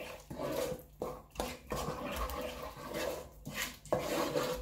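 Wooden spoon stirring a thick palm-oil-and-potash paste (ncha) in a stone-coated pot, in a run of quick wet scraping strokes, roughly two a second.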